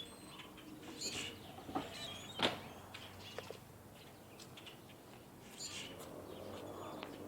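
Faint, scattered bird chirps, a few short calls spread through a quiet background.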